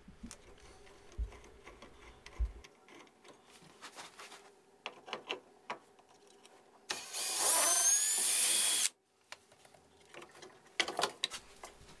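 A cordless drill-driver runs for about two seconds, with a rising whine, backing out the screw that holds an electrical outlet in its box. Around it are faint clicks and handling of the outlet.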